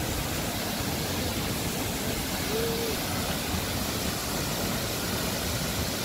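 A waterfall's steady rushing noise as the water plunges into a pool.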